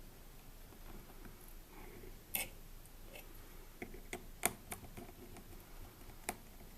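Small Phillips screwdriver working tiny screws out of a smartphone's plastic frame, giving a handful of light, sharp clicks and taps at irregular intervals; the sharpest comes about halfway through.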